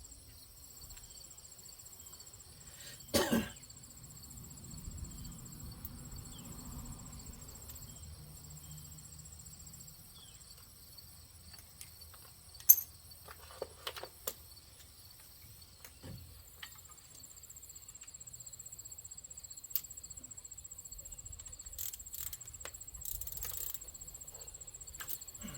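Steady high-pitched chirring of crickets, with scattered metal clicks and knocks of hand tools working on a truck's front suspension; the sharpest knock comes about 13 seconds in.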